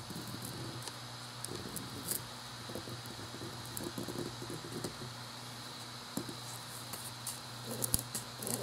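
A thin card being worked under a freshly 3D-printed plastic knife to pry it off the glued-down print bed: faint scratching and light ticks as the card scrapes along the bed and under the printed plastic, over a steady low hum.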